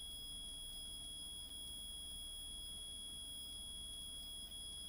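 Steady background noise of the recording: a low hum with faint, constant high-pitched whine tones and light hiss, and nothing else.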